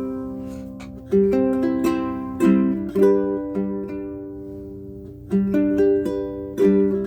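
Baton Rouge UTM-C concert ukulele with a solid spruce top, strung low-G, played solo. Plucked chords and single notes ring out and fade, with a long fade in the middle before the next phrase comes in.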